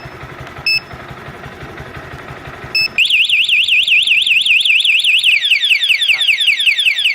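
Texno Super Two Way motorcycle alarm siren set off by its emergency button, with the motorcycle's engine idling. Three short beeps come first, then about three seconds in the siren starts: a fast warbling up-and-down tone that changes near the end to a rapidly repeating falling sweep.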